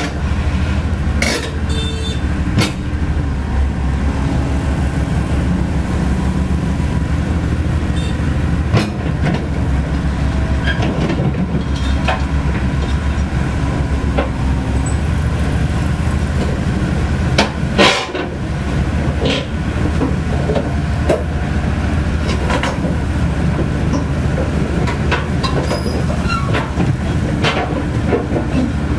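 Komatsu PC130F crawler excavator's diesel engine running under load while its steel track chains clatter and clank over the trailer deck and ramps. One loud knock about two-thirds of the way through.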